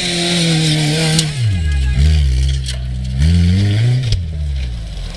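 Off-road 4x4's engine revving under load, its pitch sinking about a second and a half in, climbing again and then dropping off sharply about four seconds in. A few sharp knocks are mixed in.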